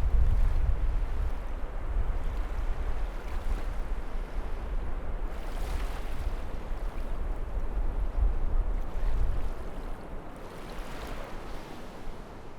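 Sea waves breaking and washing ashore, a steady surf with a strong low rumble, swelling about halfway through and again near the end before dying down.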